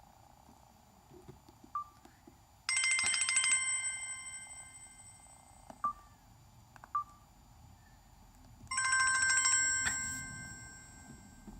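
Samsung Convoy phone ringtone: a bell-like ring that starts as a fast trill and then rings on and fades. It sounds twice, about six seconds apart, with a few faint short beeps between.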